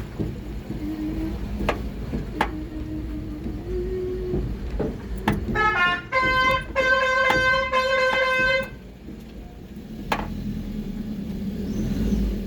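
Basuri (telolet) musical horn sounding: low wavering tones with a few clicks, then from about five and a half seconds in a loud, high horn note that steps up in pitch and sounds in short stuttering pulses for about three seconds before stopping.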